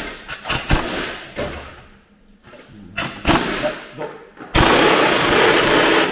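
Several sharp metallic knocks, then a pneumatic impact wrench hammering on a bolt for about a second and a half near the end.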